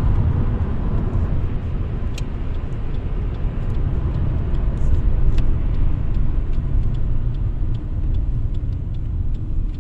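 Ford BF Falcon XR8's Boss 5.4-litre V8 running with its air filter removed, a steady low rumble with a few faint clicks.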